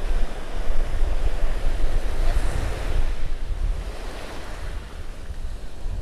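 Small waves breaking and washing up onto a sandy beach, with wind buffeting the microphone as a low rumble. The surf gets somewhat quieter in the last couple of seconds.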